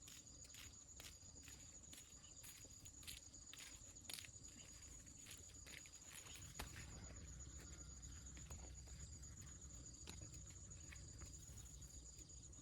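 Near silence with faint insects: a steady high drone and short high chirps repeating about once a second, with a few soft clicks and rustles.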